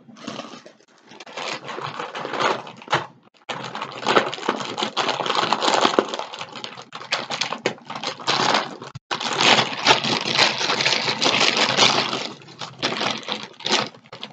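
A plastic bag being handled and crinkled, a loud, dense crackle with two short breaks, about three and nine seconds in.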